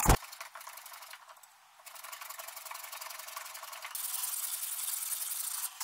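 A sharp knock, then sandpaper rubbed rapidly back and forth by hand over a wooden board, sanding an inlaid butterfly key flush. The rubbing pauses briefly about a second and a half in and turns brighter about four seconds in.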